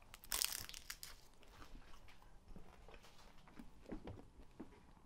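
A bite into a piece of baked filo pastry: a crisp crunch about a third of a second in, then faint scattered crackles.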